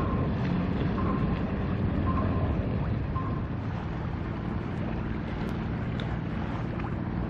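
Harbour ambience: wind on the microphone over a steady low engine hum, with a short high beep repeating about once a second for the first three seconds or so.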